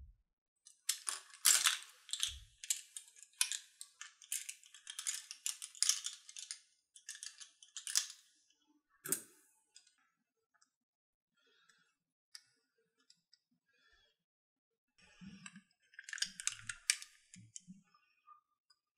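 Makeup brush handles clicking and clattering against one another as the brushes are handled and set into a silicone cup. The clicks come in busy runs, thin out to scattered ticks for a few seconds in the middle, then pick up again near the end.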